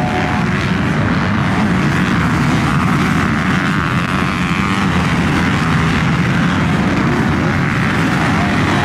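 Several motocross dirt bikes racing on the track, their engines running hard in a steady, continuous blend that doesn't let up.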